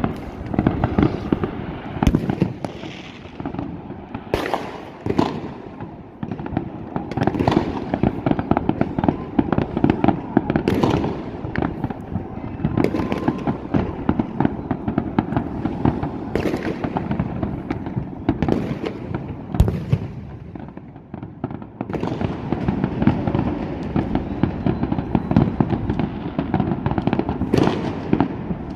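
New Year fireworks going off continuously: a dense crackle of many distant bursts, with louder single bangs every few seconds and a short lull about two-thirds of the way through.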